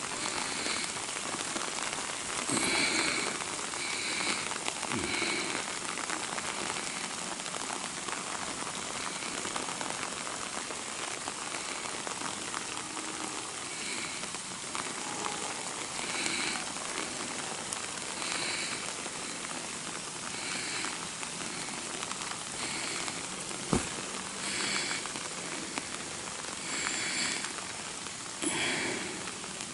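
Steady rain falling, an even hiss with short high chirps repeating every second or two and a single sharp click about two-thirds of the way through.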